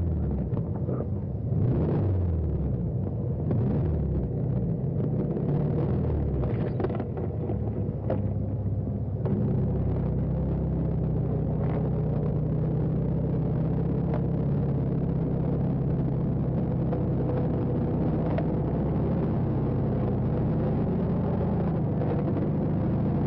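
Car engine running with a low rumble, uneven and with a few knocks at first, then settling into a steady drone about nine seconds in.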